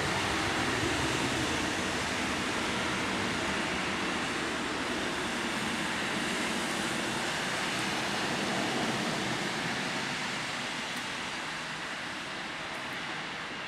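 Boeing 757-300's jet engines at takeoff power during the takeoff roll on a wet runway: a steady rushing noise that slowly fades over the last few seconds as the aircraft moves away.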